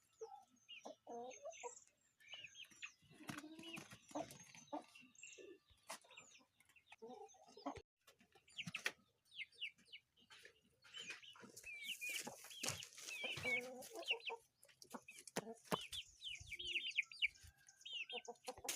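Parrot-beak aseel chickens clucking, with many short high chirps that grow busier about halfway through.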